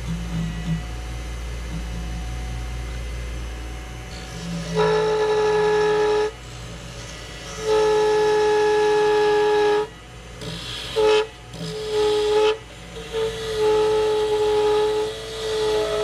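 Wood lathe spinning an epoxy blank with a low steady hum. From about five seconds in, the turning gouge cutting the epoxy gives a steady high-pitched squeal in repeated passes of one to two seconds, breaking off between cuts.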